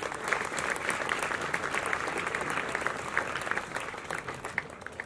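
Audience applauding, a dense clapping of many hands that dies away near the end.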